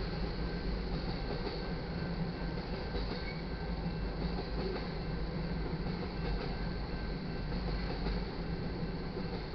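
Freight train of tank cars rolling steadily past, a continuous rumble of steel wheels on the rails.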